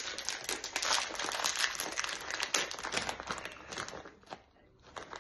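A plastic snack packet crinkling and rustling as it is pulled open and handled, a dense run of crackles that dies down about four seconds in.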